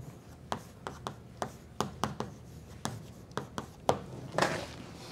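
Chalk writing on a blackboard: a string of sharp, irregular chalk taps, two or three a second, with a longer chalk scrape about four and a half seconds in.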